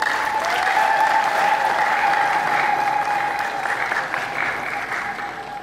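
Audience applauding, a dense patter of many hands, with a steady high tone held underneath it; the clapping thins out and fades near the end.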